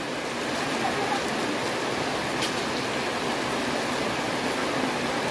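Steady rushing wind noise on the microphone, with a faint tick about two and a half seconds in; no gunshot.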